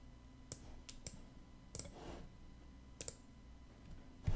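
Computer mouse clicking: several sharp clicks, some in quick pairs, then a low thump near the end.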